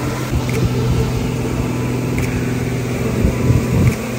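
Suzuki outboard motor running steadily at trolling speed, a constant low hum, over the rush of the boat's wake. Gusts of wind buffet the microphone, heaviest near the end.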